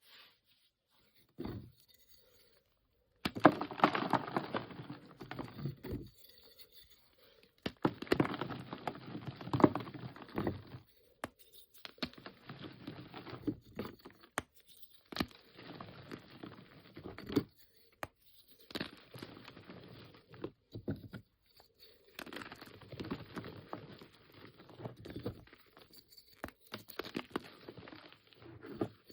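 Bars of reformed gym chalk being crushed and crumbled by hand: repeated bouts of crunching a few seconds long, with sharp clicks of pieces snapping between them.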